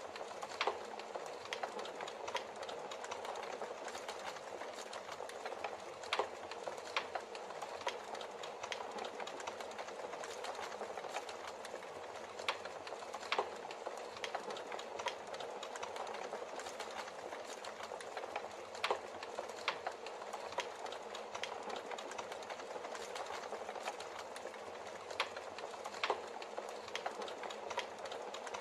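Subliminal track: a steady rushing noise with scattered sharp clicks and crackles every second or two, the masking layer laid over hidden affirmations.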